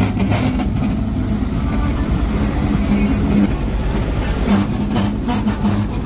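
Motor grader's diesel engine running steadily under load as its blade scrapes wet soil.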